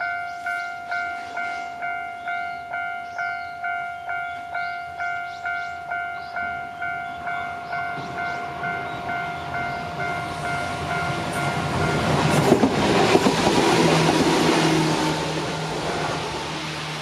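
Level-crossing alarm bell dinging in a steady rhythm, nearly twice a second, fading out as a Shizuoka Railway A3000-series electric train rushes past, its wheels clacking a few times over the rail joints.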